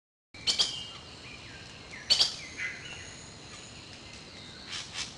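Birds calling: a few sharp, loud chirps spaced a second or two apart, with softer short whistled notes between them, over a steady background hiss.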